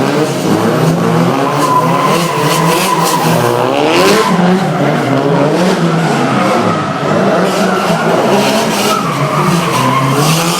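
Drift cars' engines revving up and down hard while the tyres squeal through slides.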